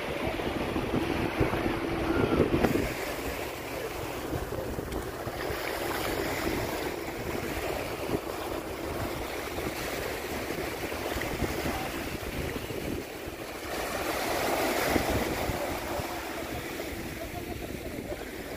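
Small waves washing up onto a sandy beach, with wind buffeting the microphone; one wash swells louder late on.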